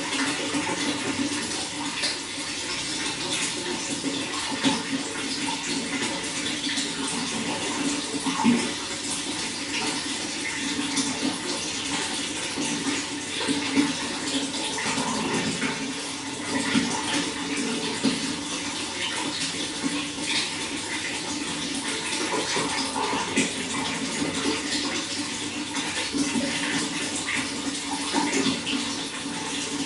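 Running water flowing and splashing steadily, with many small irregular splashes.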